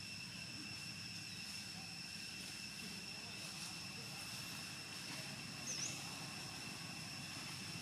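Outdoor ambience: a steady high-pitched drone and a low rumble, with one short chirp a little before six seconds in.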